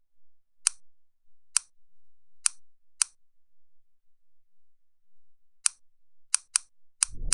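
A series of about eight short, sharp, high clicks at uneven intervals, with a pause of two to three seconds in the middle. A low rumble begins right at the end.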